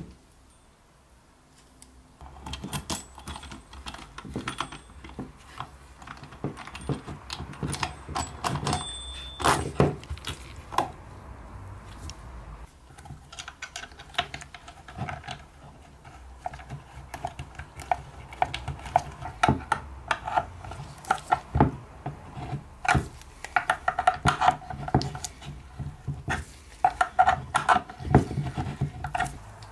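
Small metal hardware being handled and fitted: a cabinet knob, its bolt and nut clinking and tapping against each other and the wooden drawer, then a wrench clicking and scraping as it tightens the nut. Quiet for the first couple of seconds, then many irregular sharp clicks and clinks, some with a brief metallic ring.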